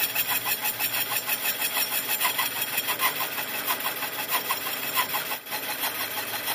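A machine running with a fast, even pulsing of about six or seven beats a second, with a brief dip about five and a half seconds in.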